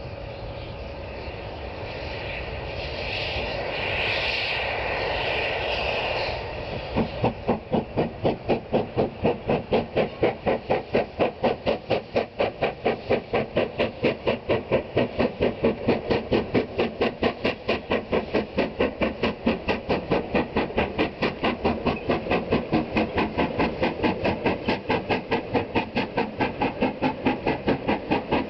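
Steam locomotive crossing a viaduct: a swelling hiss of steam for the first several seconds, then loud, even exhaust chuffs at about three beats a second.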